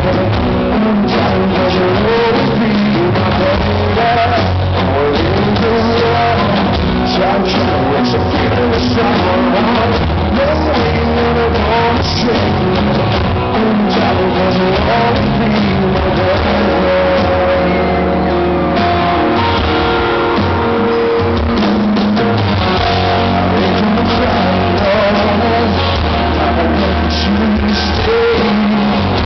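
Live rock band playing a song, with electric guitar, drum kit and singing.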